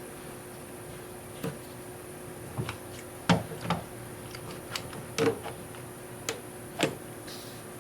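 About eight irregular light knocks and clicks, the loudest a little over three seconds in, over a faint steady hum.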